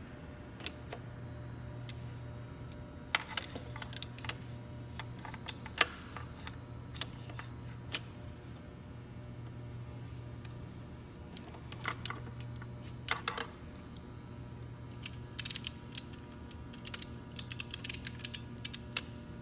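Scattered light clicks and taps of hand tools and metal parts on a gearbox being taken apart, over a steady low hum. The clicks come in small clusters, with a quick run of them near the end.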